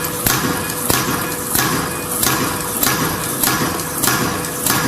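Automatic plastic zipper zigzag cutting machine running, its cutter striking in an even rhythm, about three strokes every two seconds, over a steady machine hum.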